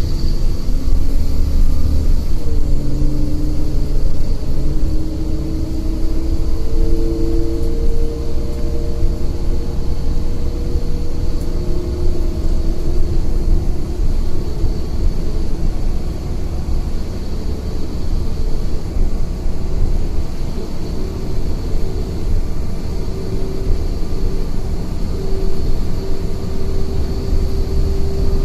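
Inside a moving city bus: steady low engine and road rumble, with a hum from the running gear whose pitch slowly drifts up and down.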